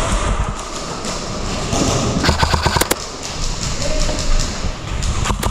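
Airsoft electric rifle firing a short full-auto burst about two seconds in, a rapid even string of shots lasting under a second, with a few more single shots near the end. Gear rustling and footsteps from a player on the move run underneath.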